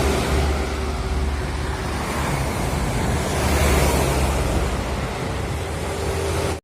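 Highway traffic with heavy vehicles passing at speed: a deep engine rumble under a wide rush of tyre and air noise that swells twice. It cuts off suddenly at the end.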